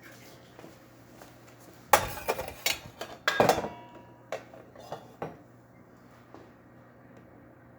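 Cups or glassware being handled and set down: a cluster of clinks and knocks about two seconds in, then a few lighter taps, over a faint steady hum.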